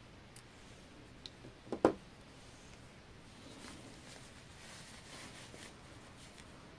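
Scissors clicking shut on the yarn end, a sharp double click about two seconds in, with a couple of fainter ticks before it over quiet room tone.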